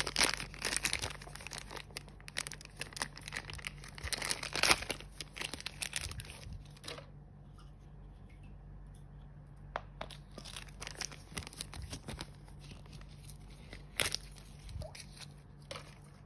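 A crinkly plastic toy wrapper being torn open and crumpled by hand for about the first seven seconds. After that it goes quieter, with a few small clicks as little plastic toy pieces are handled.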